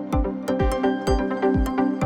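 Electronic background music: a steady four-on-the-floor kick drum, about two beats a second, under sustained synth chords.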